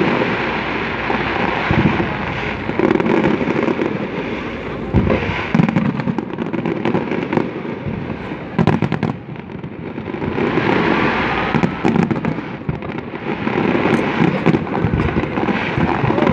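Display fireworks going off in quick succession: dense crackling and popping with many sharp bangs, swelling and easing in waves and dipping briefly a little past halfway.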